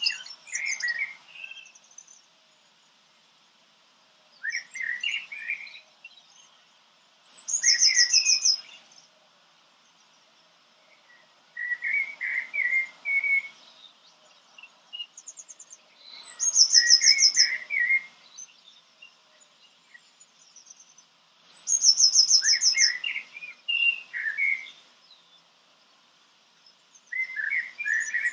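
A songbird singing in short phrases every few seconds, several of them with a quick, high, evenly repeated trill.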